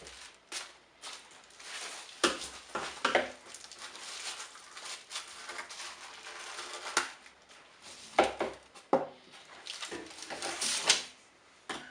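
Irregular plastic clicks, knocks and rattles as a shop vacuum's corrugated hose and its fittings are handled and pulled apart.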